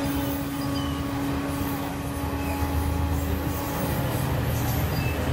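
Passenger train coaches rolling past along the track, a steady rumble of wheels on rails, with motorcycle and scooter engines passing close by on the road.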